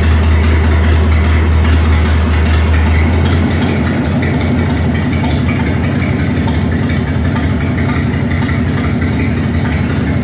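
Ford 302 V8 engine of a 22W cable-tool drilling rig running steadily. About three seconds in, its strong low hum drops away and the sound turns slightly quieter and more pulsing.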